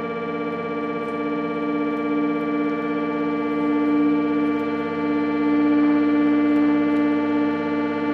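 A sustained musical drone: a chord of several steady held pitches, with one low note swelling louder through the middle.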